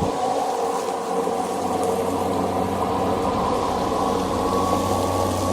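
Kobalt 80-volt battery electric push lawnmower running with a steady, even hum.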